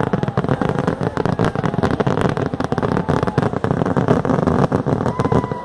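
A long string of firecrackers hung from a paper hot-air balloon going off in rapid, dense crackling with no break.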